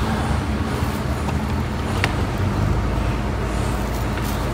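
Bus's diesel engine idling with a steady low hum, and a short click about two seconds in.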